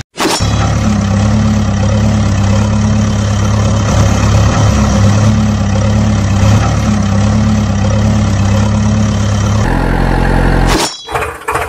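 Recorded engine sound effect: an engine idling steadily, laid over footage of a toy backhoe loader. About ten seconds in it cuts off sharply and a different engine starts a rhythmic chugging.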